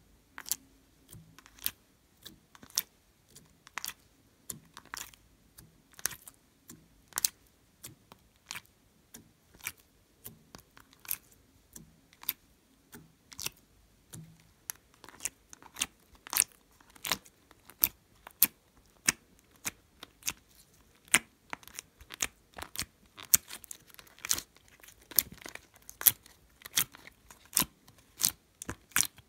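Slime being handled: a run of sharp sticky clicks and pops, about one or two a second and coming faster near the end, as cubes of slime are pushed out of a plastic ice cube tray and pressed into a bowl of slime.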